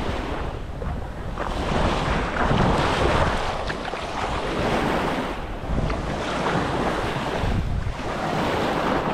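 Small waves breaking and washing up a sandy shore in repeated swells, with wind rumbling on the microphone.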